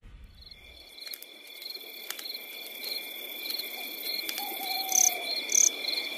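Night-time insect chorus, crickets chirping with two steady shrill trills and a pulsing chirp repeating a little under twice a second, fading in gradually. A single falling hoot-like call comes just past the middle, and two short high chirps come near the end.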